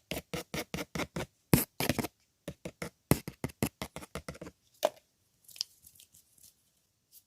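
Quick run of short, crisp clicks and taps made close to the microphone, about four or five a second, ASMR trigger sounds of the hair-salon kind. After about four and a half seconds they thin out into a few fainter, scattered ones.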